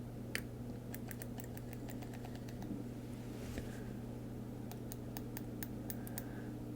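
Deco Rush decorative tape roller drawn down a paper page, its reel mechanism giving a run of small, irregular clicks.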